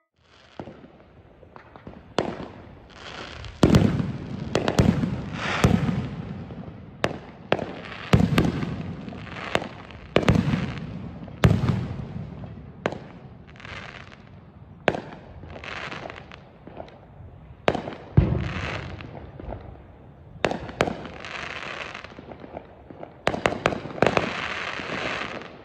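Aerial fireworks going off across the neighbourhood: a quick run of sharp booms, about one a second, some close and loud and others further off, each followed by a rumbling echo. Crackling fills the gaps between the booms and grows heavier near the end.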